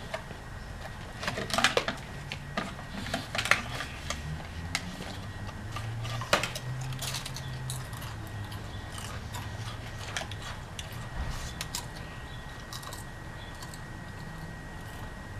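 Clicks and crinkles of snack tubes being opened and handled, busiest in the first half, then scattered crunches of chips being eaten.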